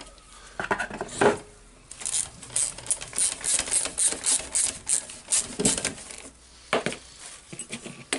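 Wera hand ratchet clicking in quick runs as it backs a nut off. There are a few knocks of metal parts and tools on the wooden workbench, one about a second in and another near the end.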